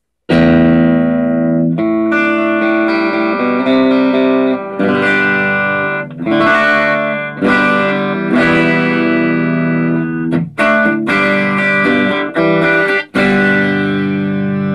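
Electric guitar played through a homemade one-watt light-bulb MOSFET amplifier and speaker, with a clean, compressed tone plus reverb and chorus from a multi-effects unit. A series of ringing chords, with brief breaks about ten and thirteen seconds in.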